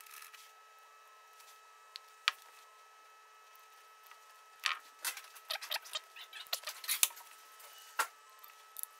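Wooden stir stick scraping and tapping on a taped board while epoxy is mixed and worked for a knife handle glue-up: a single tick about two seconds in, a cluster of light scrapes and clicks around the middle, and another tick near the end, over a faint steady hum.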